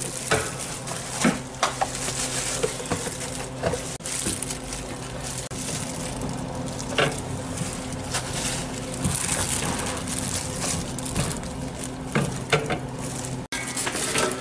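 Margarine sizzling and bubbling as it melts on a hot flat griddle, with scattered light clicks and taps of utensils over a steady low hum.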